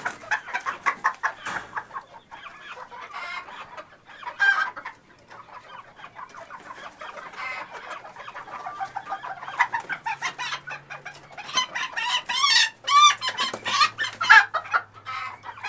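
Chickens clucking in quick, short notes, with a run of loud, drawn-out calls from about twelve seconds in.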